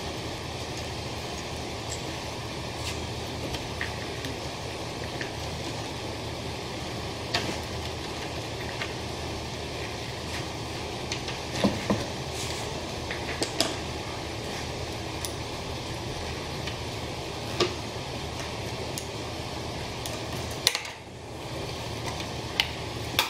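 Steady workshop background hum with scattered small clicks and knocks as 10 mm bolts are fitted by hand into a snorkel's upper mounting bracket. The sharper knocks come in a cluster near the middle and again near the end.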